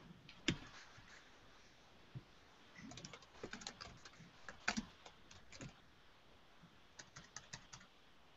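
Faint typing on a computer keyboard: scattered key presses, then a few quick bursts of keystrokes with short pauses between them.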